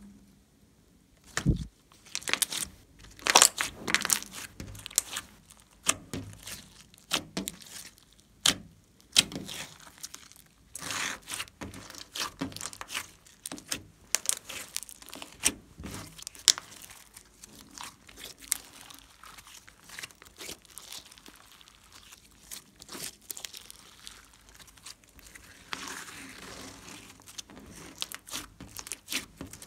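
Hands squeezing, stretching and kneading a large lump of glossy slime: irregular sticky crackles and pops as air pockets burst, the loudest few in the first seconds, then a denser run of smaller crackles.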